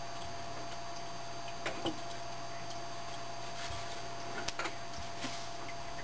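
A few faint small clicks and taps as a small power connector is worked into a PCI Express video card, a couple near two seconds in and several more around four to five seconds in, over a steady background hum.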